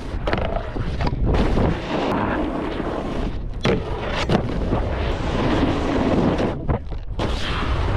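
Snowboard sliding and scraping over hard, icy snow at speed, with wind buffeting the microphone and a few sharp knocks as the board hits bumps.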